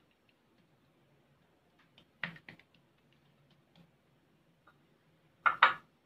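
Scattered short taps and clicks as hands work oiled dough on a marble countertop and handle small bowls, with a louder double knock near the end.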